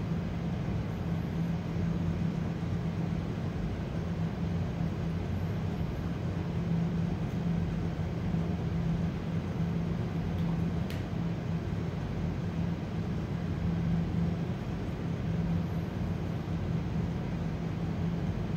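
A steady low mechanical hum holding one pitch, with a faint tick about eleven seconds in.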